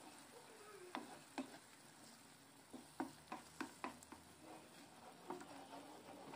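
A spoon stirring eggs into tomato sauce in a nonstick frying pan: light taps and scrapes of the spoon against the pan, several in quick succession around three to four seconds in, over a faint sizzle.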